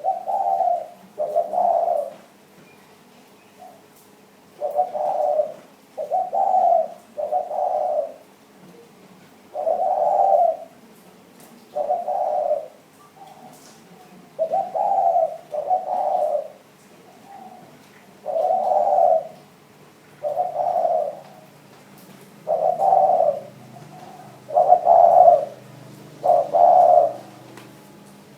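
Spotted dove cooing: low hooting coos, each under a second long, repeated every one to three seconds and sometimes run together in twos and threes.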